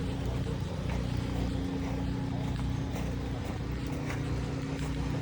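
An engine running steadily at an even speed: a constant low hum with a steady tone and a few faint clicks.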